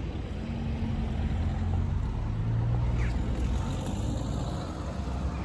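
Low rumble of a vehicle engine on the street, swelling to its loudest about two to three seconds in and then easing off.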